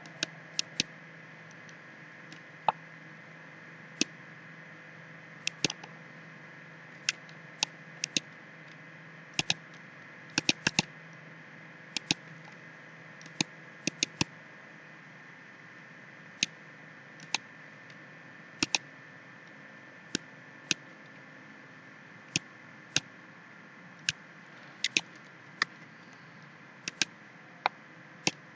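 Computer mouse clicks at irregular intervals, single and in quick pairs like double-clicks, over a steady faint hum and hiss.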